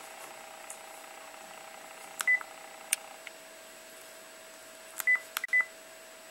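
Phone keypad beeps as the buttons are pressed to place a call: a single short high beep about two seconds in, then three more close together near the end, each with a faint button click.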